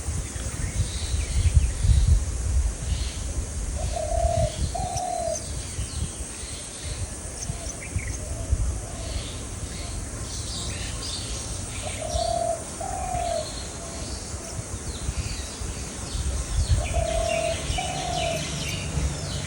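A dove cooing three times, each a pair of low coo notes, with small birds chirping high and thin throughout. A low rumble runs underneath, strongest early on.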